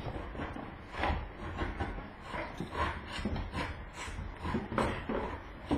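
Cardboard boxes being handled: irregular rustling, scraping and light knocks of cardboard.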